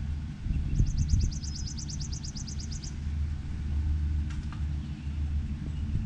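A steady low rumble, with a small bird singing a rapid high trill of about twenty short notes that starts about a second in and lasts about two seconds.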